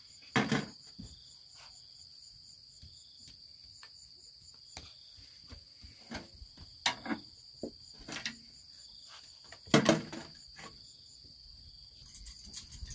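Insects trilling steadily in a constant high tone, with a scatter of sharp knocks and clinks from a ladle and small bowls set down on a metal tray as rice is served. The loudest knocks come about half a second in and just under ten seconds in.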